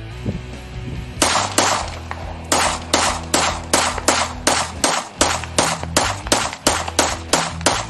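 Glock pistol with a 100-round drum magazine fired semi-automatic in quick succession. The shots start about a second in and come about three a second, over background music.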